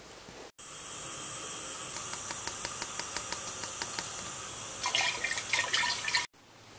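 Water in a glass hookah base as flavour powder goes in: a run of light ticks, about four a second, then louder splashing and sloshing for about a second near the end, stopping abruptly.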